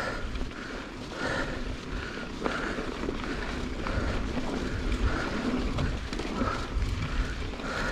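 Mountain bike rolling along a dirt trail: a steady rumble of tyres and trail, with wind buffeting the microphone. A soft mid-pitched pulse recurs about every two-thirds of a second throughout.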